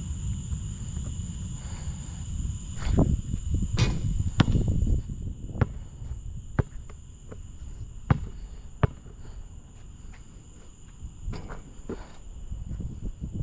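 A basketball bouncing on a hard court in about nine scattered, irregular thuds, the loudest a few seconds in. Underneath there is a steady high insect chirring and a constant low rumble.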